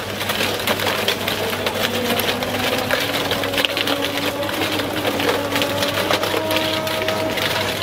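Spinning ice-cream freezer drum with a steady hum, while a scraper rasps against its frozen surface in rapid, dense strokes.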